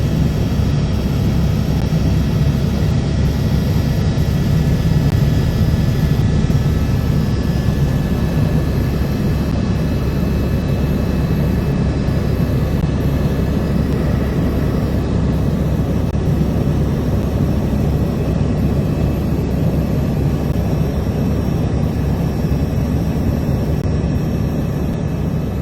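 Helicopter in flight: a loud, steady drone of engine and rotors.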